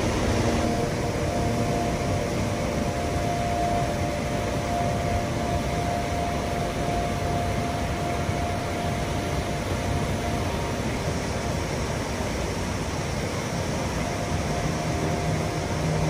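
Waterfall plunging into a pool: a steady, unbroken rush of falling water.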